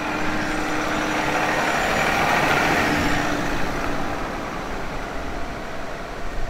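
An Ineos Grenadier with a six-cylinder diesel driving past and away: engine and tyre noise swell to a peak a couple of seconds in, then fade slowly as it pulls away.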